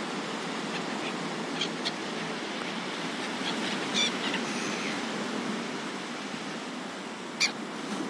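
Seagulls giving a few short, sharp calls, about two seconds in, four seconds in and near the end, over a steady rush of wind.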